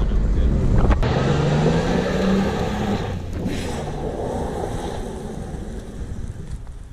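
Toyota 4Runner's engine accelerating, its pitch rising for about a second and a half, then easing off and fading away. This is the test run after a new O2 sensor was fitted.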